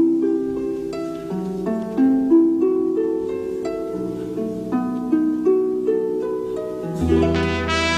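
Orchestra playing a slow song introduction: a harp's rippling broken chords over held lower notes. About seven seconds in, the fuller orchestra comes in with a strong bass.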